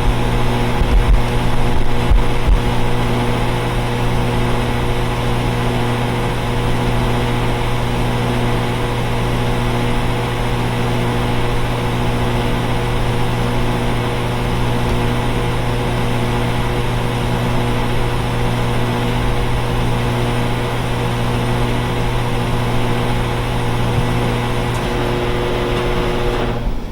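Central air conditioner outdoor condensing units running: a steady low compressor hum with a constant fan rush.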